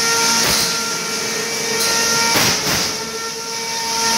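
Small combat robots fighting: a steady, high motor whine from a spinning weapon, broken by several sharp hits and clatters as the robots and loose parts strike each other, two of them close together a little past halfway.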